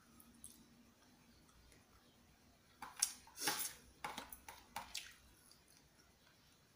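Metal fork clicking and scraping against a plastic bowl while gathering pancit noodles: a quick cluster of sharp clicks and short scrapes about three seconds in, lasting a couple of seconds.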